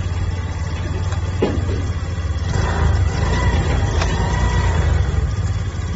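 X-Pro Vader 125 motorcycle engine idling steadily, with two short clicks about one and a half and four seconds in as the gear lever is pushed up from first into neutral.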